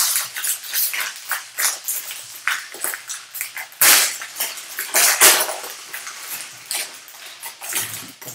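Foil-lined wrapper of a baseball card pack being torn open and crumpled by hand: a dense run of crackles and rustles, loudest about four and five seconds in.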